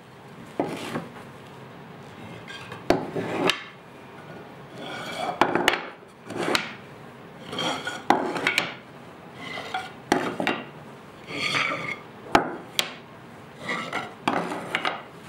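Planed hardwood strips being laid down and pushed together on a plywood workbench: wooden knocks and clacks about every second, each with a short sliding scrape as a strip is set against the others.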